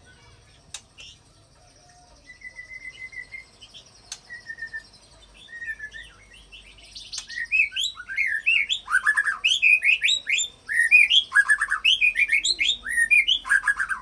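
White-rumped shama singing: a few soft notes and a short trill at first, then from about seven seconds a loud, fast run of sweeping whistles and chirps, its song built from phrases mimicked from other birds, which the keeper calls cililin and canary inserts.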